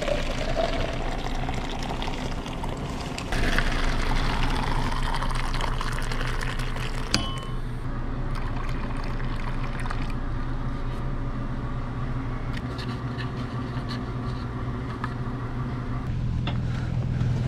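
Coffee pouring from a dispenser into a foam cup. A click about seven seconds in, then a hot-drink machine dispensing steadily for several seconds.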